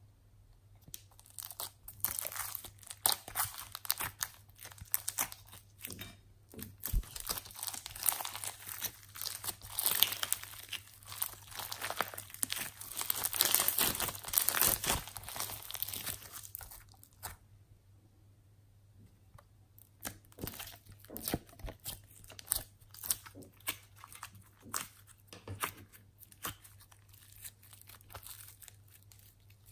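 Hands squeezing and kneading slime packed with foam beads, giving a dense crackling and popping of the beads. After about fifteen seconds there is a brief lull, then sparser crackles.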